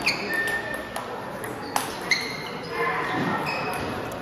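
Table tennis balls being struck and bouncing on nearby tables in a large hall: scattered sharp clicks, several followed by short high pings, the loudest just under two seconds in and again a moment later, over faint background voices.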